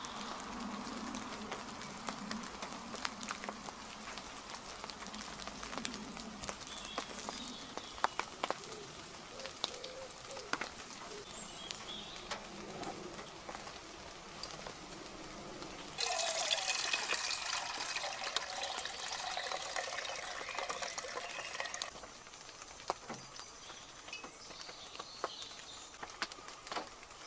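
Wet woodland ambience: scattered water drips ticking over a soft hiss, with birds calling and a wood pigeon cooing in the first few seconds. About 16 s in it jumps abruptly to louder birdsong over a steadier hiss, then about 22 s in it drops back to quieter dripping.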